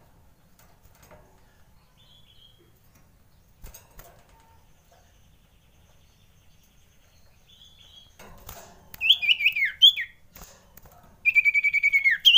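Common iora (cipoh) calling: faint high notes early, then a loud burst of quick notes falling in pitch, and near the end a rapid trill of about ten notes sliding downward. These are the male's frightened alarm calls, used as a lure call. A few light knocks come in between.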